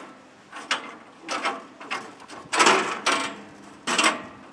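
Woodland Mills HM126 band sawmill's blade wheel being pushed round by hand in several short spurts of mechanical noise as the band blade turns with it, the longest spurt about two and a half seconds in. The wheel is being turned to check how the blade tracks on the wheel.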